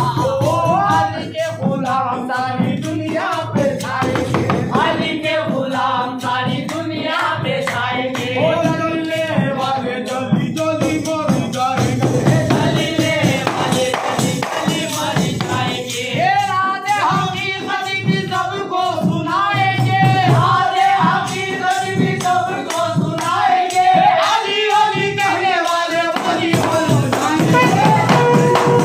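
Qawwali: a devotional song sung over steady, jingling percussion, with a steady held note coming in near the end.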